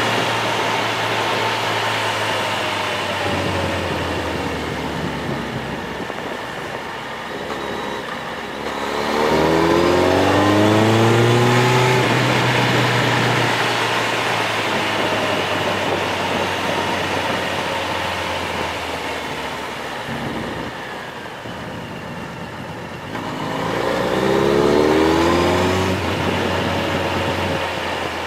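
A vehicle's engine under way on a descending mountain road, with two rising surges of acceleration, the first about nine seconds in and the second near the end. Between them the engine settles back under steady road and wind noise.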